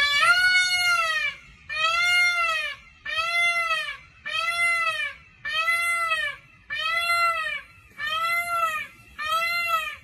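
Indian peafowl (peacock) calling: a series of eight pitched calls at an even pace, about one every 1.2 seconds, each rising then falling in pitch.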